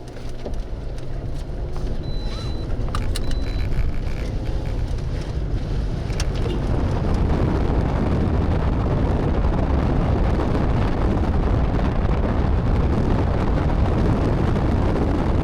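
Car driving away and picking up speed, with road and wind noise building over the first several seconds and then holding steady.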